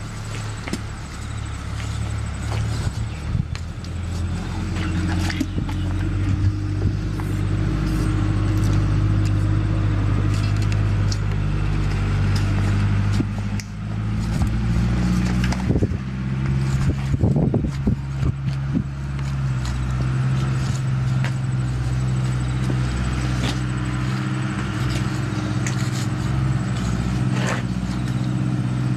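A motor engine running steadily at a low pitch that shifts a few times, with scattered clicks and knocks over it.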